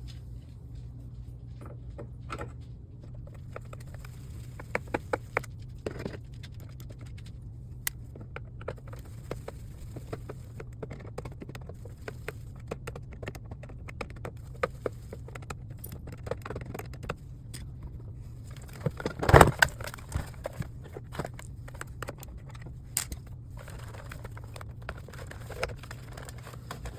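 A screwdriver removing two screws from the back of a plastic monitor stand: scattered small clicks, ticks and light metallic scrapes, with a louder brief clatter about two-thirds of the way through, over a steady low hum.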